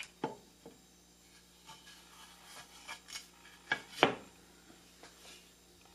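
Wood being handled: several light, separate knocks and some rubbing of wooden pieces, the sharpest about four seconds in, over a faint steady hum.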